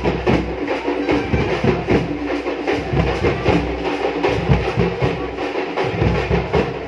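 A street procession drum band beating a fast, steady rhythm on large drums.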